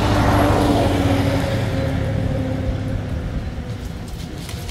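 A vehicle engine running with a low rumble and a hum that sinks slightly in pitch as it fades away.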